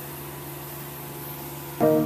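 A steady hum with a faint hiss, then piano-led background music comes in loudly near the end.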